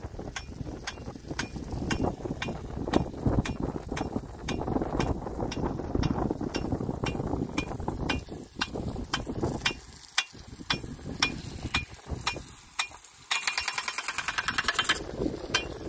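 Rain gun sprinkler's swing arm clicking steadily, a few strikes a second, over a rushing noise. Near the end there is a short run of much faster clicking.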